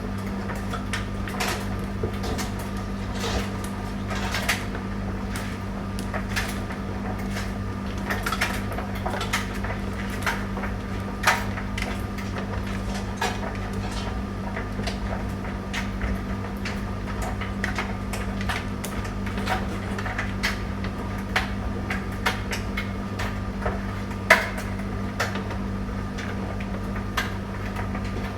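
Tumble dryer running: a steady motor hum with frequent irregular light clicks and knocks as the load tumbles in the drum.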